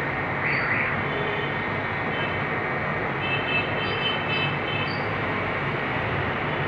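A steady rushing, machine-like background noise with a low hum underneath, with faint high thin tones a few seconds in.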